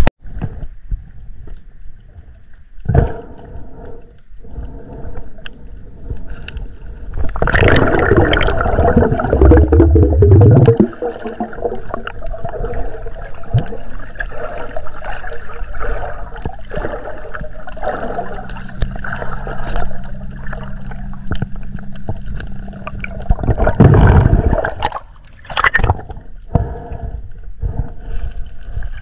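Water gurgling and splashing close to the microphone, with a low steady hum in places.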